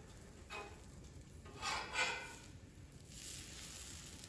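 Metal spatula scraping on the steel top of a Blackstone griddle as it slides under a pancake and flips it. There are a few short scrapes, and the loudest comes about two seconds in.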